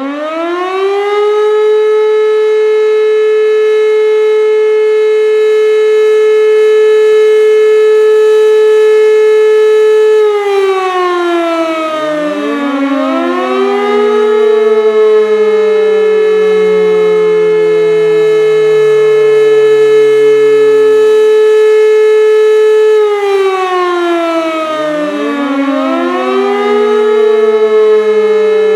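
World War II air raid siren sounding loudly: it winds up to a steady high note in the first second or so and holds it for about ten seconds. It then slides down in pitch while a fresh wind-up rises over the falling tone, and this rise-hold-fall cycle comes round twice.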